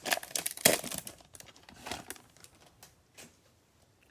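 Baseball card pack wrappers crinkling and tearing as the packs are ripped open. The crackling is dense and loudest in the first two seconds, then thins to a few faint crackles.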